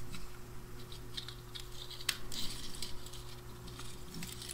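Faint scattered clicks and ticks of small flush cutters and fingers working the mica spacer on a 6L6G tube's electrode assembly, with one sharper click about two seconds in.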